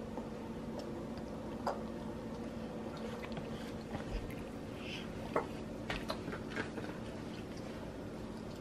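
Toddler eating finger food at a plastic high-chair tray: faint chewing and squishy mouth sounds with scattered light taps of hands on the tray, over a steady low hum.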